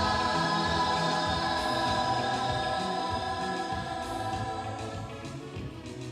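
Church choir singing long held notes in gospel style, fading gradually.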